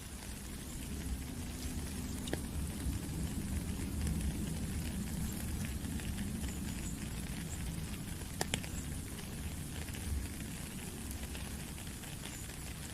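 Steady rain with scattered sharp drips and a low gurgle of running water.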